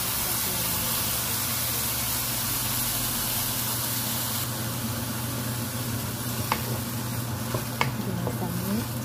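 Rice, meat and mushrooms sizzling in a nonstick wok with a steady hiss. In the last few seconds a spatula stirs the rice and scrapes against the pan with a few short clicks, over a steady low hum.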